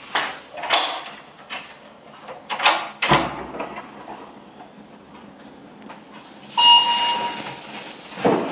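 Slippered footsteps on a tiled floor and the clunk of a front door's lock and handle being worked as it is unlocked and opened. A short steady beep sounds about two-thirds of the way through.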